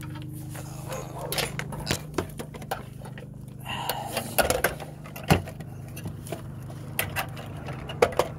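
Scattered clicks and knocks of hands and a handheld camera moving about under a car, over a steady low hum; the sharpest knock comes a little past halfway.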